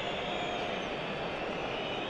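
Steady background noise of a large stadium crowd: an even, distant hubbub.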